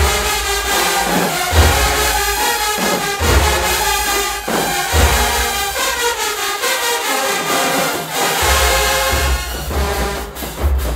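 Marching band brass section playing loudly in unison: trumpets with sousaphones, whose heavy low bass notes recur about every second and a half to two seconds.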